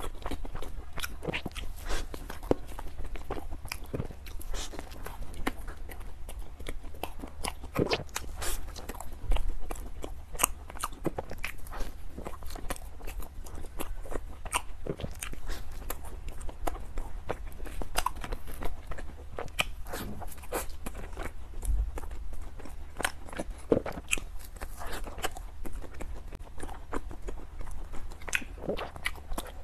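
Close-miked chewing and biting of a soft bread bun: many sharp mouth clicks and smacks at an irregular pace.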